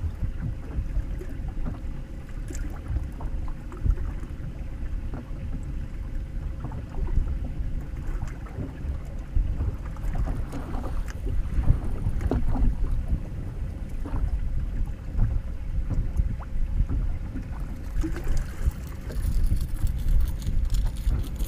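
Wind rumbling and buffeting the microphone out on open water in a boat, with small knocks and a faint steady hum underneath. The wind hiss grows stronger near the end.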